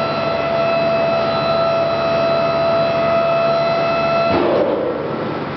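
Electric-hydraulic pump of a dump hoist whining steadily at one pitch as it tilts a truck-mounted hopper up. It cuts off suddenly about four seconds in, with a brief falling sound as the hoist stops.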